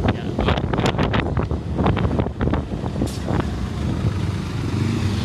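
Road traffic passing close by, with short crackles over a low rumble in the first few seconds, then a vehicle engine's steady rumble growing louder near the end.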